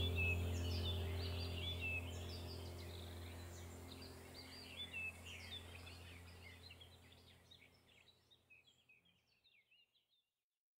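Many small birds chirping over a low steady hum, the whole ambience bed fading out gradually to silence near the end.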